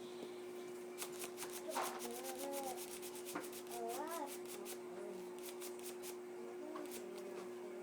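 Hands rubbing and handling a paper toy shotgun wrapped in electrical tape close to the microphone: a quick run of scratchy strokes, several a second, that stops about a second before the end, over a steady low electrical hum.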